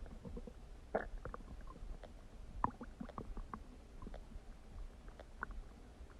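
Human stomach gurgling: a run of small, faint pops and bubbling, with a slightly louder gurgle about a second in.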